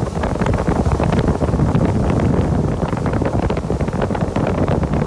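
Wind buffeting the microphone: a loud, rough low rumble with irregular crackles.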